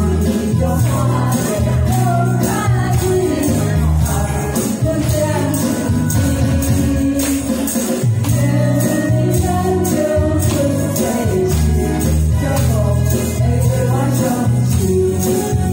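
Two women singing a duet into handheld microphones over an amplified karaoke backing track with a steady beat, strong bass and jingling tambourine-like percussion.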